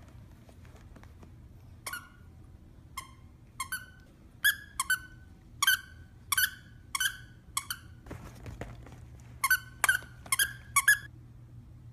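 Plush squeaker toy squeaked over and over by a small dog chewing it: short, sharp, irregular squeaks begin about two seconds in. After a short rustle and a pause, a quicker cluster of squeaks follows near the end.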